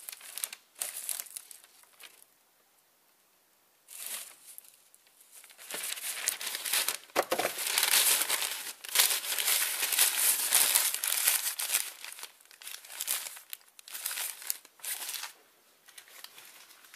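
Newspaper rustling and crumpling in irregular bursts, with a short pause after the first couple of seconds and the loudest, busiest crumpling in the middle.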